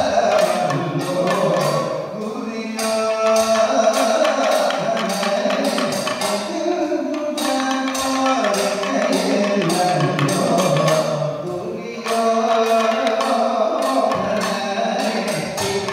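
Kathakali accompaniment: male singers' voices with drums beating and a run of regular, sharp time-keeping strokes.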